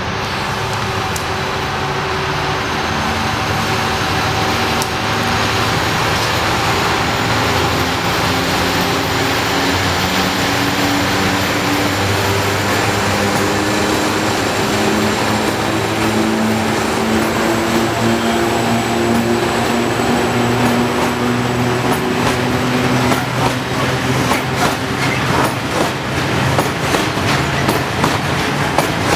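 A pair of class 753 diesel locomotives working hard to start a heavy limestone freight train, with the engine note climbing in steps as they accelerate past. From about two-thirds of the way through, the rhythmic clatter of the hopper wagons' wheels over rail joints takes over.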